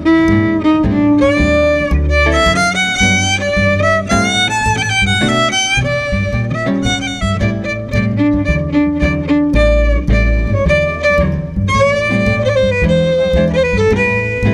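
Instrumental background music led by a violin, over a steady bass and rhythm accompaniment.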